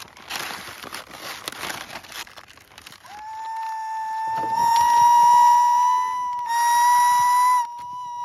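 A steady, high whistling tone held for about five seconds, rising slightly in pitch, with a brief break near the end before it sounds again.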